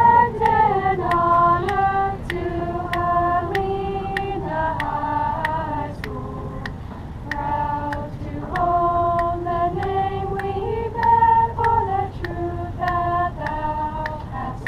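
A small group of high school horn players singing their school alma mater a cappella in harmony, with a steady tick about twice a second under the voices.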